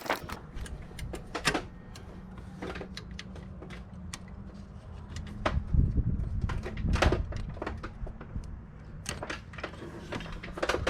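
Hand wrench work on an alternator's mounting bolts: irregular metallic clicks and knocks, a few heavier ones past the middle, over a low steady hum.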